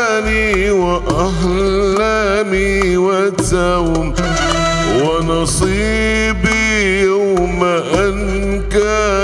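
Arabic music played live: a male voice singing long, ornamented lines over oud and violin.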